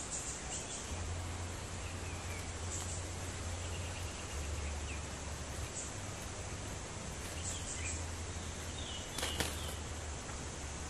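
Faint, scattered short chirps and whistled notes of bulbuls over a steady high insect drone and a low hum, with one sharp click a little after nine seconds.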